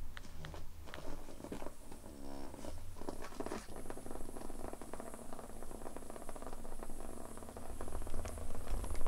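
Small battery-powered vibrating bug toy buzzing and rattling along the floor as a fast, even clatter of tiny clicks from about three seconds in, getting louder near the end.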